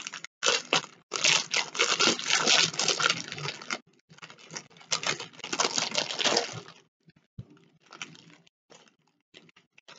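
Clear plastic bag crinkling and rustling as it is pulled open and its contents handled. The rustling is dense for most of the first seven seconds, then thins to scattered light crackles and clicks.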